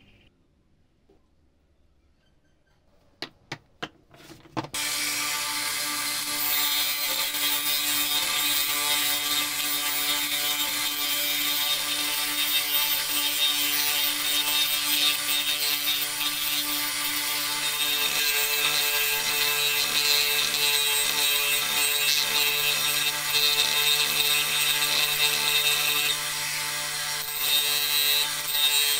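Near silence, a few clicks, then about five seconds in a benchtop disc sander starts and runs steadily with a constant hum. A teak toy wheel is held against the spinning disc and sanded, adding a steady rasping hiss.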